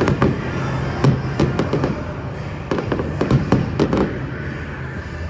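Aerial fireworks bursting in a quick series of sharp bangs, in two clusters of several reports each.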